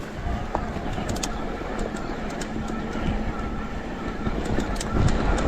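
Shimano EP8 e-bike mid-drive motor whirring steadily under load on a technical climb, with frequent clicks, knocks and rattling from the bike going over rough ground.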